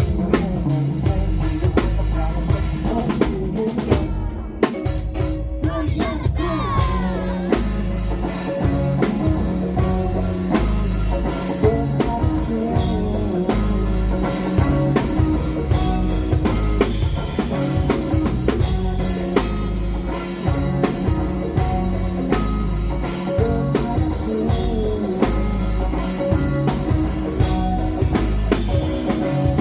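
Rock band music with a drum kit keeping a steady beat over bass and guitar, with no words sung.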